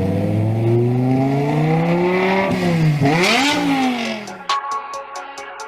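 A car engine revving: its pitch climbs steadily, drops sharply, rises again and falls away. Electronic music with a steady beat comes in about four and a half seconds in.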